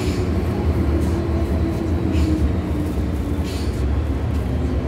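MTR M-Train (Kwun Tong Line) heard from inside the car as it slows along a station platform: a steady rumble of wheels on track under a faint whine from the traction motors that slowly falls in pitch as the train brakes.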